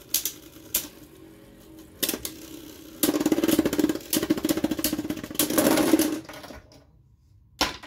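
Two Beyblade Burst spinning tops battling in a plastic stadium. A few sharp clacks as they strike each other are followed by about three seconds of rapid clattering as they grind and collide. The clattering stops about six seconds in, when one top has burst apart, and one sharp click comes near the end.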